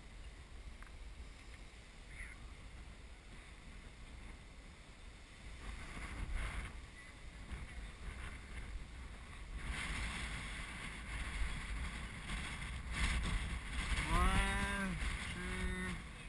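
Wind buffeting an action camera's microphone: a steady low rumble that grows stronger in the second half. Near the end, a person's voice gives a short drawn-out call, followed by a shorter one.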